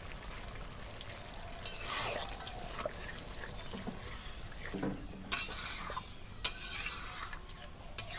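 Steel ladle stirring a watery meat-and-potato curry in a large metal pot, the curry sloshing as the ladle scrapes, with several sharp clinks of the ladle against the pot. The water has just been added to the braised meat.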